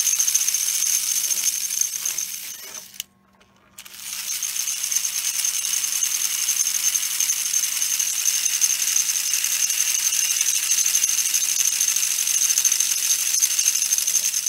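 A 1935 Lionel Red Comet locomotive motor running on test power with its drive wheels spinning free, making a steady, high-pitched metallic whir. It cuts out about three seconds in and starts again just under a second later. The owner puts the mechanical, metallic noise down to too little lubrication in the motor so far.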